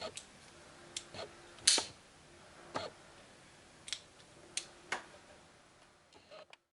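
Sharp metallic clicks of a folding knife being flicked open and snapped shut: about ten separate clicks at uneven spacing, the loudest about two seconds in.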